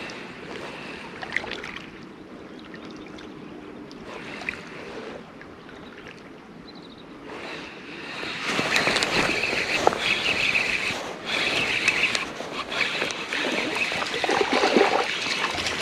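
Water sloshing and splashing, louder from about halfway through.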